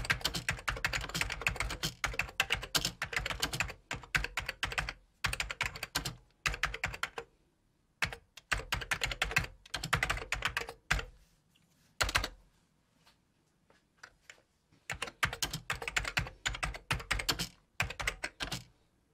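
Typing on a computer keyboard: fast runs of key clicks in bursts, broken by short pauses and one longer pause a little past the middle.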